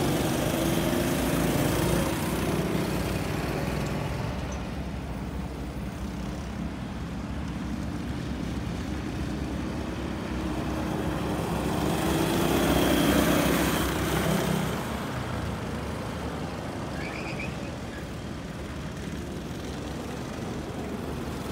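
Go-kart engines running as karts lap the track, the sound swelling and sliding in pitch as karts pass close by about two seconds in and again around twelve to fourteen seconds in.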